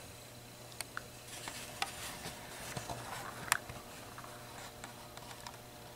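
Faint handling noise: scattered light clicks and rustles, with a sharper click about three and a half seconds in, over a low steady hum.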